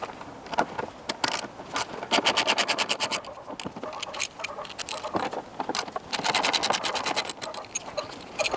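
Ratchet wrench clicking in two quick runs, about ten clicks a second, while undoing the bonnet latch's T30 Torx screws, with scraping and handling noises between the runs.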